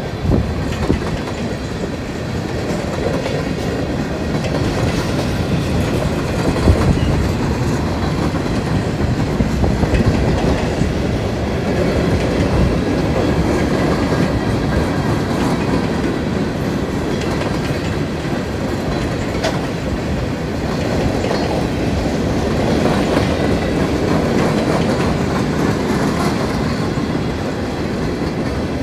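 Freight train of empty open hopper (rock) cars rolling steadily past, a continuous rumble of steel wheels on rail with a few sharp clanks, the loudest about seven seconds in.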